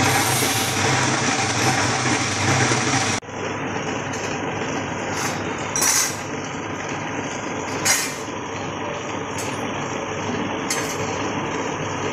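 Electric two-drum es puter machine running: a steady motor hum as the stainless churn drums turn in crushed ice, with a lower hum that is stronger for the first three seconds. Then the sound changes abruptly, and a few light metallic clinks come over the steady running.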